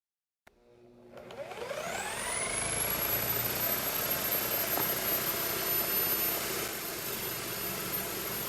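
Drill-powered disc sander, driven by a Bosch GBM10RE electric drill, switched on and spinning up. Its motor whine rises in pitch over about a second and a half, then settles into steady running with a hiss.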